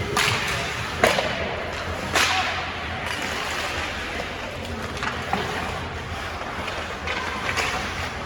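Sharp cracks of hockey sticks and puck striking in an echoing ice rink: three loud ones in the first two and a half seconds, then smaller clicks over a steady noisy rink background.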